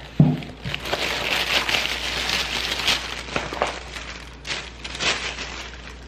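Plastic takeout bag rustling and crinkling as a cardboard meal box is taken out of it, with a dull thump near the start and a few sharper crinkles later on.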